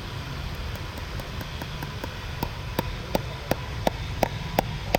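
Rhythmic hammer taps, about three a second, starting faint and growing louder over the second half, over a steady low rumble. The source is taken to be a farrier's hammer.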